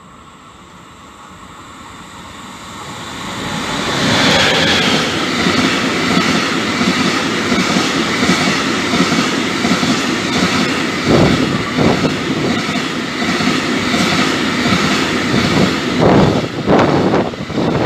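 Freight train running through: an E.483 electric locomotive grows louder as it approaches and goes by about four seconds in. A long string of empty Sgsss container flat wagons follows, rattling and clattering steadily over the rails. Several sharper wheel knocks come in the second half.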